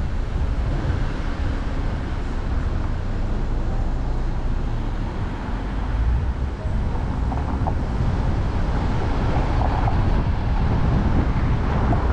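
Steady road and wind noise of a car driving, a low rumble that grows a little louder about halfway through.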